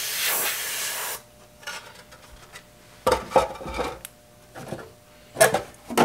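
Airbrush spraying paint with a steady high hiss for about the first second, then cutting off. Rubbing, scraping and a few sharp knocks follow, with the loudest a little after three seconds and again near the end.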